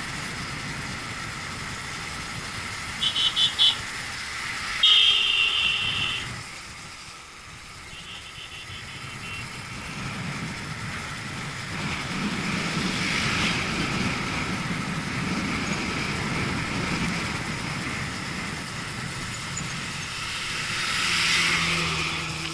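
Motorcycle running along a road, with engine and wind noise throughout. A vehicle horn gives a few short beeps about three seconds in, then a louder long blast at about five seconds, and fainter beeps again around eight seconds.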